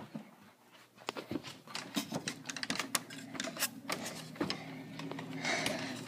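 York gas furnace starting up on a call for heat: a steady motor hum comes in about a second in and grows, the draft inducer running before ignition, with many irregular clicks and knocks over it.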